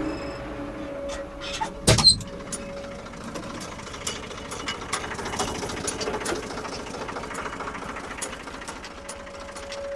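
A 1975 Ford 550 backhoe's diesel engine running steadily, with a sharp loud knock about two seconds in and lighter knocks scattered through.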